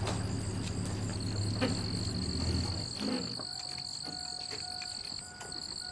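Insects, crickets by the sound of it, singing a steady high-pitched drone, over a low hum that stops about halfway through.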